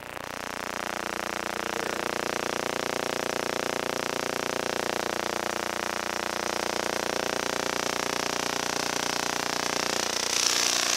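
833C vacuum tube Tesla coil running in CW (continuous-wave) mode: a steady electrical buzz with hiss from the corona streamers off the ion motor's wire tips. It swells over the first second or so as the power is turned up, then holds steady, and the hiss grows brighter near the end.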